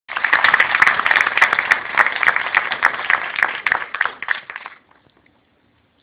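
Audience applauding, dense clapping that thins out and stops about five seconds in.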